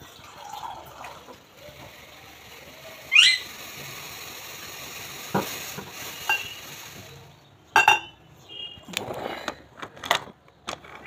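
Milk tea simmering in a steel saucepan on the stove with a steady hiss, and a few clinks of utensils against the pan. About three seconds in comes a short, sharp, rising squawk from a pet, the loudest sound here.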